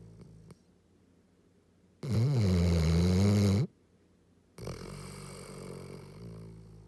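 Yellow Labrador snoring in its sleep. A very loud, pitched snore comes about two seconds in and lasts about a second and a half, followed after a short pause by a quieter, longer breath that fades away.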